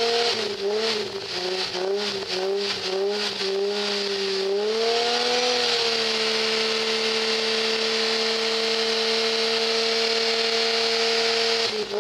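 Nissan 350Z Nismo's 3.5-litre V6 revving loudly while stationary. It gives quick repeated blips of the throttle for the first four seconds or so, then climbs to a high rev, holds it steady for about six seconds, and drops back just before the end.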